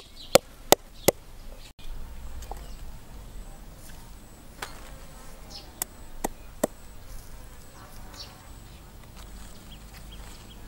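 A cleaver chopping a root on a round wooden chopping board: four quick chops in the first second, then a few single spaced chops around the middle. A faint steady high-pitched tone runs underneath.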